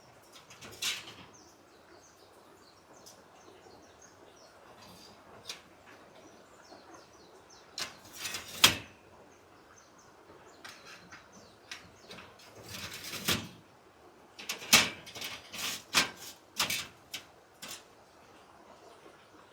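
Irregular knocks, clatters and rustles of things being handled, in clusters about 8 to 9 seconds in and again from about 13 to 17 seconds, over a faint steady hiss.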